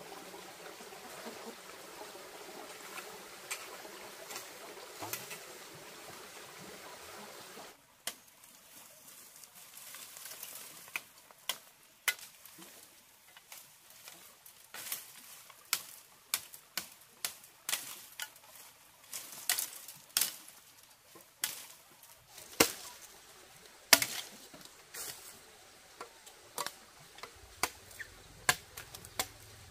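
Steady outdoor background for the first several seconds. Then a machete chops into bamboo stalks amid dry fallen bamboo leaves: sharp, irregular knocks and cracks about once a second, with crackling in between, the loudest two strikes about three-quarters of the way through.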